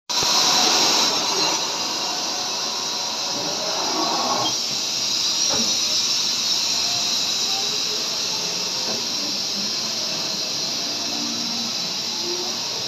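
Steady hissing noise with faint, scattered short tones underneath.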